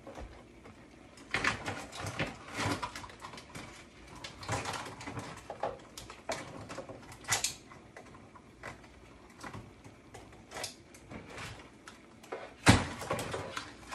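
Live blue crabs being handled in a kitchen sink: irregular clicks, scrapes and rustles of shells and claws, with a louder knock near the end.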